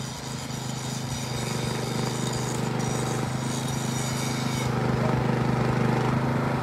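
A small engine running steadily with a constant pitch, getting a little louder in the second half.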